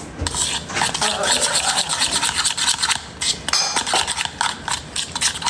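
Rapid, rhythmic scraping of a utensil against a bowl as a mixture is stirred.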